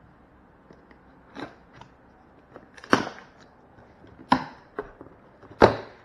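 Cardboard packaging struck or worked with a hand tool: four sharp knocks, about a second and a half apart.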